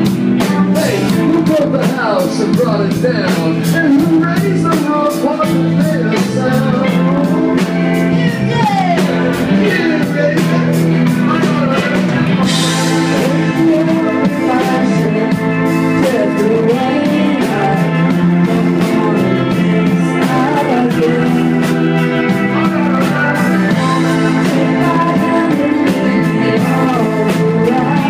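Live rock band playing an instrumental passage: a lead line of bending, sliding notes over keyboard chords, bass and a steady hi-hat beat.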